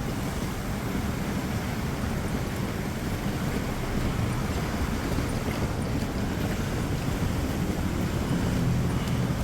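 Vehicles moving through a flooded street: engines running steadily with the wash of floodwater pushed around them.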